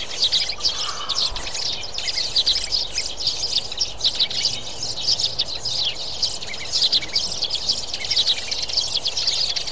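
Sparrows chirping: a dense, continuous chatter of many short, high chirps overlapping one another.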